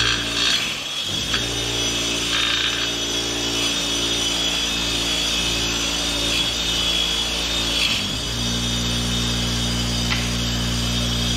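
Bench grinder running with a green silicon-carbide wheel, a carbide-tipped stump-grinder tooth held against it and ground with a steady hiss over the motor hum. The grinding stops about eight seconds in and the grinder spins on freely.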